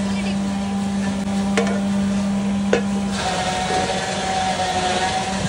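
Steady machine-like hum in a bulk-cooking kitchen, with two sharp clinks in the middle typical of a ladle striking a metal cooking pan; a little past halfway the low hum stops and a higher steady tone carries on.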